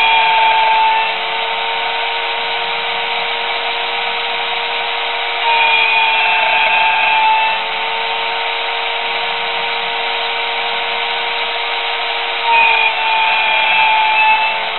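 Homemade mini CNC router running with a steady motor whine, louder for a second or two at three points. The sound cuts off suddenly at the end.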